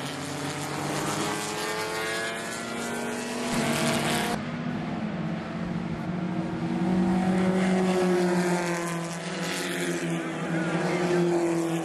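Engines of several small dirt-track race cars running hard as they lap past, with overlapping notes that rise and fall slowly. A hiss fades out about four seconds in, and the engines are loudest a little past the middle.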